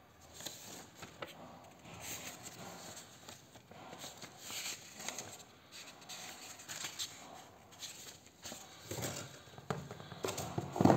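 Paper pages of an instruction booklet rustling and flipping as they are leafed through by hand. Near the end come louder handling bumps, with the loudest knock at the very end, as the cardboard box and the plastic monitor are picked up.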